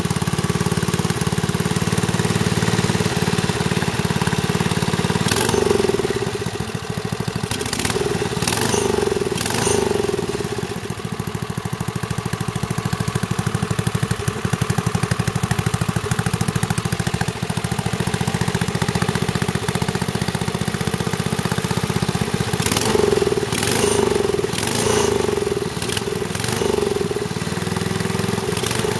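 Rebuilt wood chipper engine running steadily on its first run after sitting for years, fed on a makeshift mix of acetone, carburetor cleaner and a little diesel, with its throttle stuck about half open. It swells briefly and clatters a few times.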